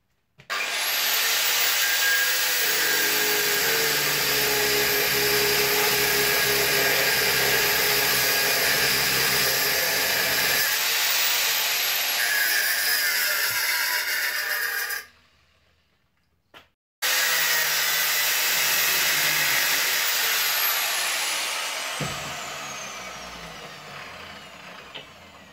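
Angle grinder working a solid stainless steel bar: the motor whines up to speed and runs with a dense, steady grinding noise. It stops briefly about fifteen seconds in and starts again, then the whine falls away as the disc coasts to a stop near the end.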